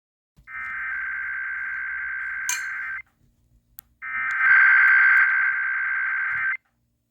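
Two bursts of EAS SAME header data, the rapid digital tones that open an Emergency Alert System Required Weekly Test. Each burst lasts about two and a half seconds, with about a second's gap between them.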